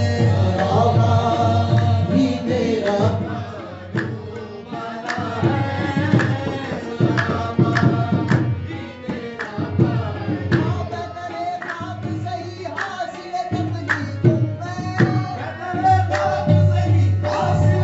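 Music with tabla drumming under a singing voice.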